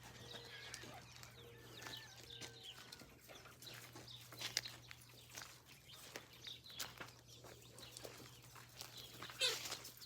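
Chickens clucking faintly amid many small scratching and pecking clicks, over a steady low hum, with a louder rustle near the end.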